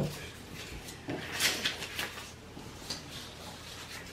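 Light knocks and soft rustling of Monopoly paper money and pieces being handled on a tabletop, a few short scattered sounds.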